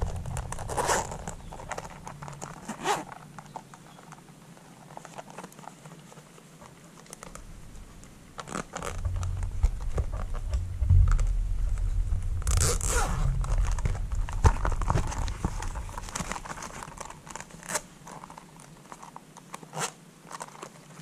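Zipper of a zip-around motorcycle phone holder case being pulled in several short strokes, with rubbing and handling noise from the case between them.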